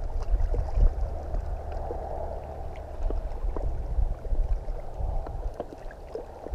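Small waves lapping and splashing against a rocky shoreline, with wind rumbling on the microphone.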